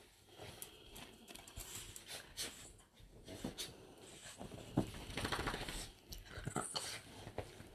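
Pet dogs moving about and panting, with scattered clicks and rustles and a louder spell of rapid pulsed breathing about five seconds in.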